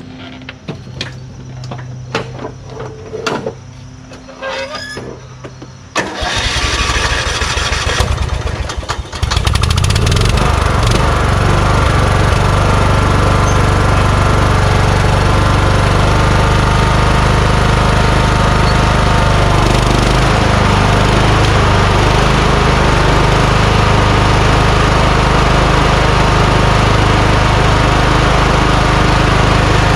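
Kohler Courage engine of a Craftsman YS4500 lawn tractor cranked by its electric starter for about three seconds, then catching and running steadily. A few knocks and clatters come before the cranking.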